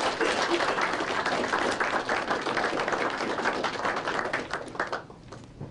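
Audience applauding, many hands clapping at once; the applause dies away about five seconds in.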